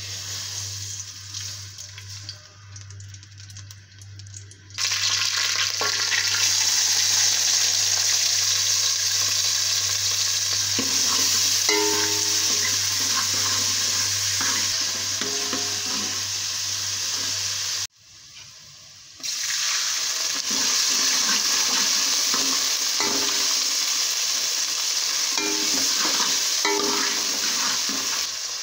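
Chopped onions sizzling in hot oil in an aluminium pot while a steel spoon stirs and scrapes them. The loud sizzle starts suddenly about five seconds in and briefly drops out near two-thirds of the way through.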